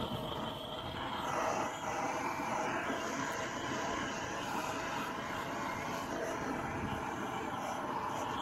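Gas torch burning with a steady roar while heating a medium-voltage cable joint.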